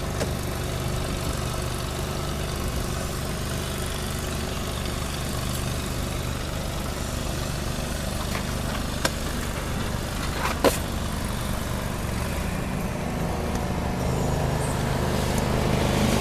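Engine of a truck-mounted pressure washer running steadily, with an even hiss over it. There are two brief clicks partway through, and it gets slightly louder near the end.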